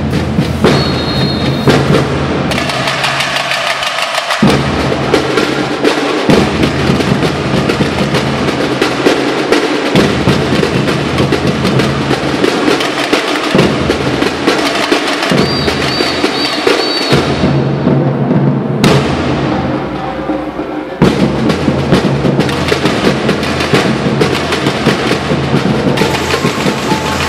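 Samba bateria playing a batucada: surdo bass drums, snare drums, tamborins and metal shakers in a dense, steady rhythm. The bass drums drop out and come back in several times, and after a short dip the full band comes back in about 21 seconds in.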